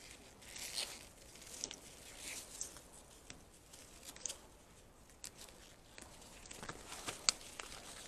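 Gloved hands rustling through leafy greenhouse vines, tugging stems and pulling off tendrils: faint, irregular rustling and tearing with a few sharp clicks, the sharpest a little after seven seconds in.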